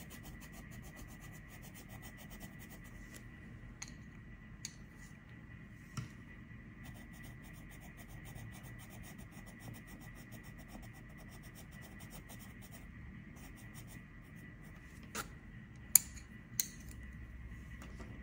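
Coloured pencil scratching on paper in quick back-and-forth shading strokes, over a faint steady high tone. A few sharp clicks break in, the loudest about two seconds before the end.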